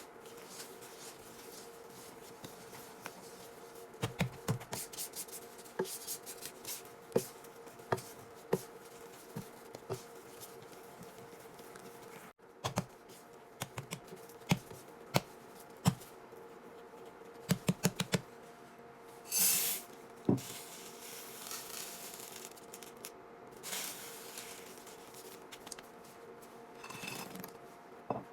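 Kitchen preparation sounds: scattered sharp clicks and taps, some in quick clusters, with a short rustling burst about two-thirds through, over a faint steady hum.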